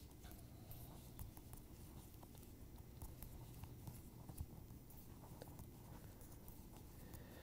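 Near silence with faint, irregular clicks of thin metal double-pointed knitting needles tapping together as stitches are knitted.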